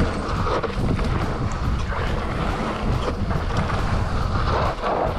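Wind buffeting the microphone during a fast mountain-bike descent on a rough trail, with tyre noise and steady rattling knocks from the bike over the bumps.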